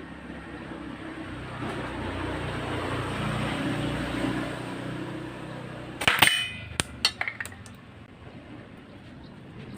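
A loud, sharp clanking hit with a short ring about six seconds in, followed by four lighter clicks, over a steady low engine rumble that swells and then fades.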